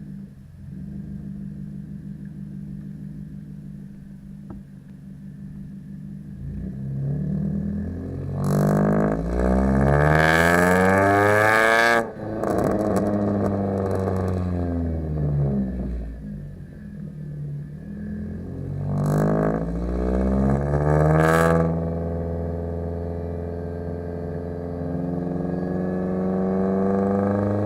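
2011 Kia Forte EX's four-cylinder engine heard through its exhaust, idling steadily, then revved up twice with the pitch rising and falling back. The first rev cuts off sharply at its loudest point.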